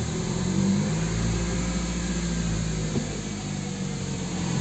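Toyota Celica seventh-generation engine running steadily at idle through its newly refitted exhaust, the joint between the intermediate and rear sections back in place; it sounds much smoother.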